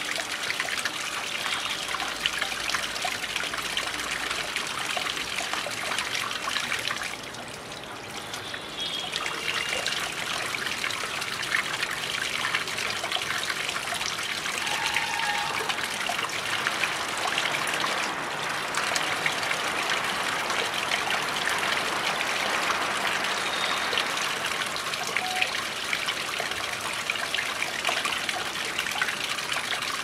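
Small homemade pump-fed rock waterfall, water trickling and splashing down the stones into a shallow pool. The sound is steady and dips briefly about seven seconds in.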